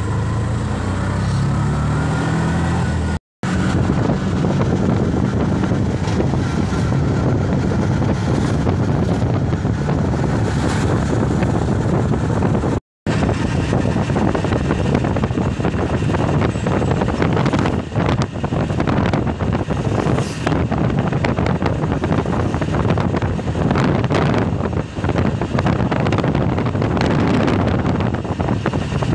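Wind rushing over the microphone and road noise from a moving vehicle, heard at its window. The sound cuts out for an instant twice, about three seconds in and again about thirteen seconds in.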